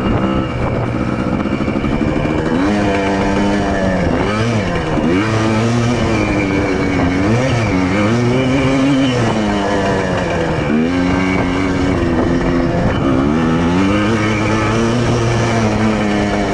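Yamaha Blaster's two-stroke single-cylinder quad engine under way, revving up and easing off again and again as it is ridden, its pitch rising and dropping with each throttle change.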